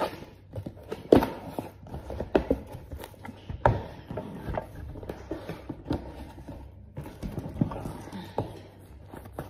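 A cardboard product box being opened and its packed contents handled: irregular knocks, taps and rustling, the loudest knock about a second in.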